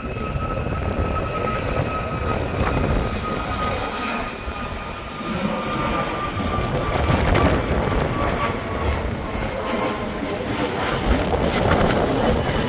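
Airbus A321XLR prototype jet airliner passing by: its engines make a steady rumble and a clear whine that slowly falls in pitch as it goes past.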